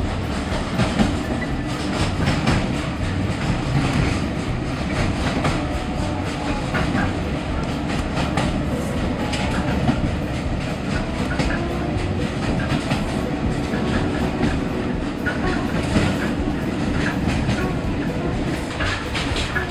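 Passenger coach of a moving train heard from inside the carriage: a steady rumble of the wheels on the rails, with irregular clicks and knocks from the track.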